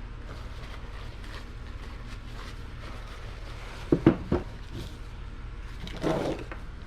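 Three quick knocks about four seconds in and a short clatter near the end: tools or engine parts being handled, over a steady low hum.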